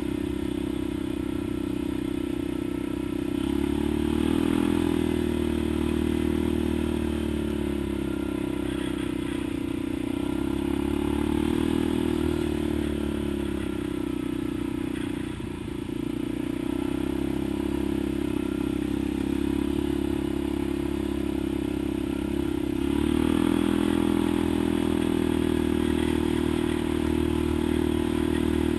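ATV engine heard from on board while riding a dirt trail, its note rising and falling with the throttle. It eases off briefly about halfway through, then climbs and holds louder near the end.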